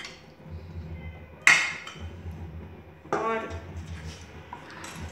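A steel ladle clinks once against a steel mixing bowl of batter about a second and a half in, a sharp strike with a brief metallic ring.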